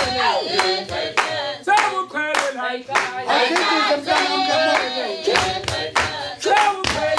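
A group of voices singing a Zulu chant for a traditional warrior dance, punctuated by sharp percussive beats at an irregular, quick pace.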